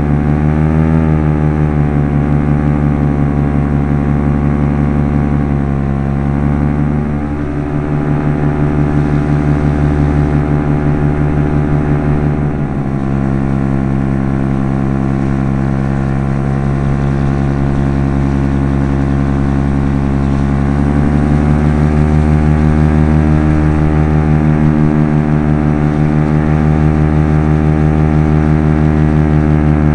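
PAP Top 80 paramotor's two-stroke engine and propeller running hard in low-level flight, heard close up from the pilot's harness. The note stays mostly steady, with a short dip about seven seconds in, a small drop near thirteen seconds, and a slight rise a little past twenty seconds.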